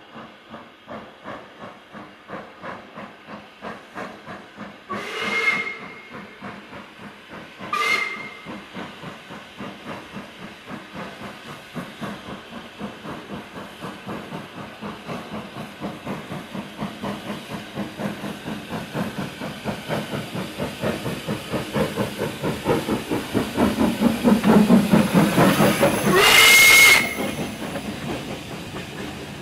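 WD Austerity steam locomotive 90775 working a goods train towards the camera, its exhaust beating in an even rhythm, with steam hissing, that grows louder and a little quicker as it nears. Its whistle sounds briefly twice, about five and eight seconds in, then once more, longer and loudest, as it draws level. Near the end the wagons roll past.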